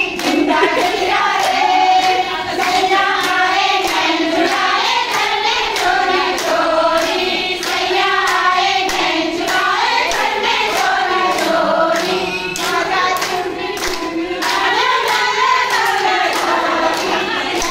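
A group of women singing a song together, one voice leading and the rest joining in, over steady rhythmic hand clapping.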